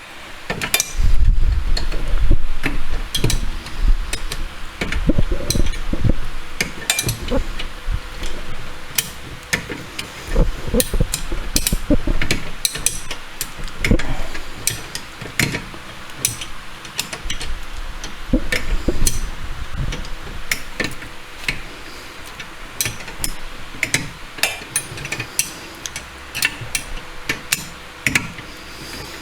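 Hand tools working the lower bolt of a car's rear brake caliper: irregular metal clicks, clinks and knocks, with heavier low thumps in the first few seconds.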